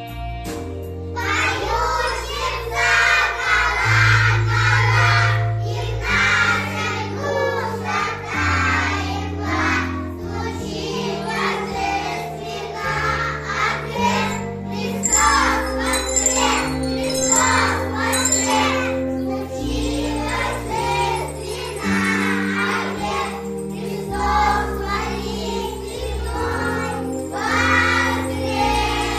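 A Russian-language song: a voice singing the melody over an instrumental accompaniment with a stepping bass line. The singing comes in about a second in.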